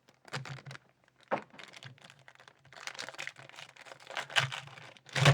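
Crinkling, tearing and rustling of trading-card packaging and cards being handled, with scattered small clicks and taps.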